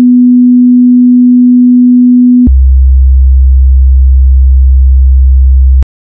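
Software synthesizer oscillator putting out a loud, steady pure test tone. About two and a half seconds in it drops abruptly to a much lower tone, and it cuts off with a click near the end.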